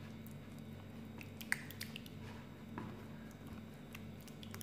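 Silicone spatula stirring a wet yogurt marinade in a ceramic bowl: quiet wet stirring with a few light clicks of the spatula against the bowl.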